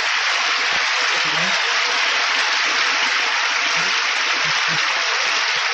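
A large audience applauding steadily, dense clapping with a few faint voices in it.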